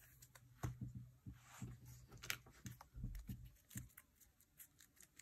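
Faint, irregular light taps and rustles of photocards and plastic binder pocket pages being handled.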